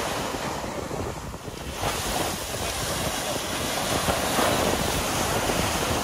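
Ocean surf breaking and washing up a sandy beach. A wave crashes in about two seconds in, and the wash swells louder a couple of seconds later.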